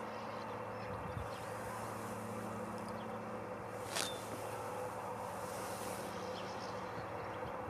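A steady buzzing drone that fades out near the end, with a few faint high chirps over it and one sharp tick about four seconds in.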